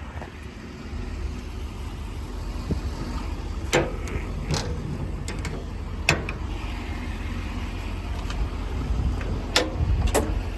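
Steady low rumble of a truck's 6.6-litre Duramax diesel idling, with five sharp clicks and knocks scattered through, the loudest about six seconds in.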